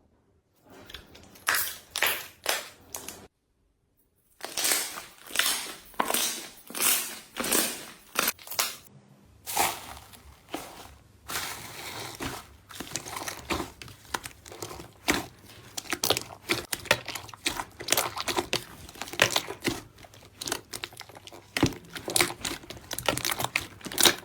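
Slime being squeezed, pressed and poked by hand, giving repeated crinkly, crackling squishes about one or two a second, with two brief breaks between clips.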